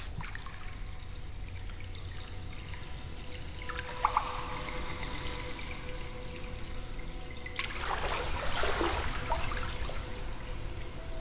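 Water trickling and pouring into a hot spring bath. It grows louder about two-thirds of the way through, over a faint steady tone.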